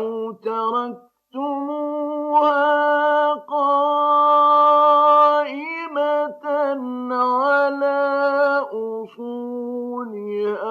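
A man's voice reciting the Quran in the melodic mujawwad style, holding long ornamented notes with gliding turns. There is a brief breath pause about a second in, and the longest held note comes about midway.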